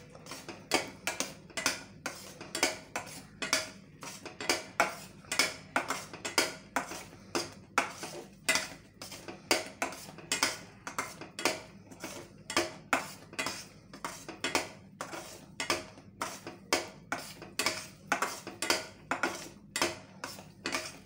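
A metal spatula scrapes and knocks against a stainless steel pan about twice a second as a thick milk and milk-powder mixture is stirred while it cooks down.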